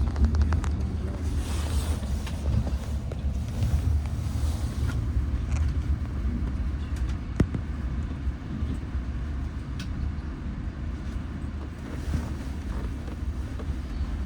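A steady low rumble with a haze of outdoor noise over it and a few scattered sharp clicks, one louder click about seven seconds in.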